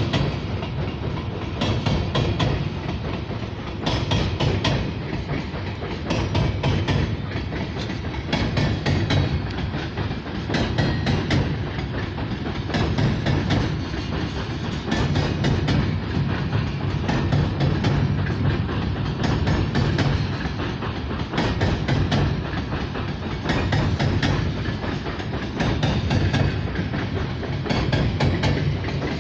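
Coal train hopper cars rolling past over a steel railway bridge: steel wheels clattering over the rail joints in a steady clickety-clack over a continuous low rumble, with a group of clicks about every two seconds as each car's wheels pass.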